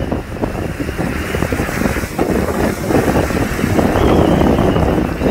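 Wind buffeting the microphone in gusts, over the wash of surf at the water's edge, getting louder about two seconds in.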